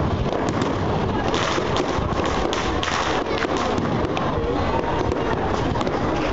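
Fireworks going off: a dense run of sharp crackles and pops over a steady background noise.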